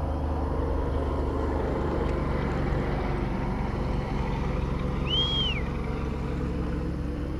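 A boat motor running steadily with a low, even hum. There is one short high chirp that rises and falls about five seconds in.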